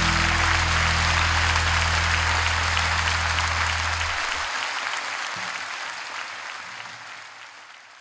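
Large audience applauding in a concert hall, with the band's final held low chord sounding under it and stopping about halfway through. The applause fades out toward the end.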